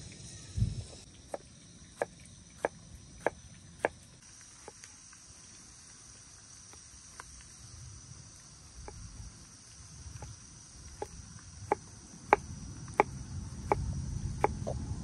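Knife chopping tomatoes on a wooden cutting board: sharp single taps about one every half second to second, thinning out for a few seconds midway before picking up again. A steady faint high insect chirr sits underneath.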